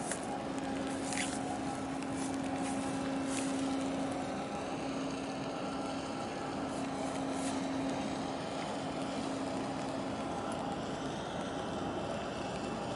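Steady mechanical drone of a large container ship under way, with a constant low hum over a rushing background noise.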